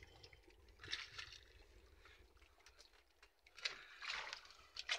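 Faint wet rustling and light splashes as a nylon gill net is handled and fish are worked free of the mesh, with a few short bursts about a second in and again near the end.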